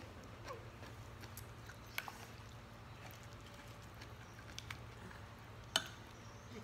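Quiet mealtime table sounds: a few light clicks of a metal spoon against an earthenware serving pot and plates as fish is scooped out, the loudest near the end, over a faint steady low hum.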